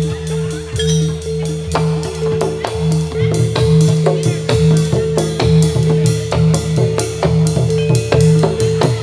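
Jathilan dance accompaniment: a percussion-led Javanese ensemble with fast, driving drum strokes over steady held low notes.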